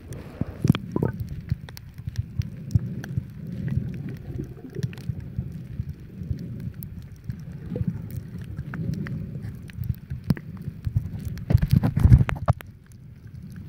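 Underwater ambience picked up by a submerged camera: a low, muffled rumble of moving water with scattered sharp clicks and crackles, and a louder cluster of knocks near the end.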